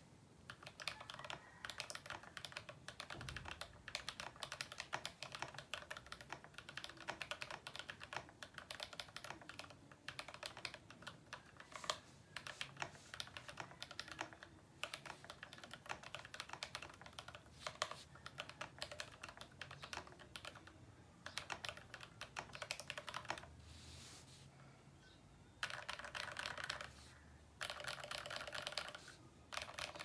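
Continuous fast typing on a GMMK Pro mechanical keyboard with lubed Tecsee Kingfisher switches, an aluminium plate, case and PCB foam and PBT keycaps: a dense stream of keystroke clacks, broken by two short pauses near the end.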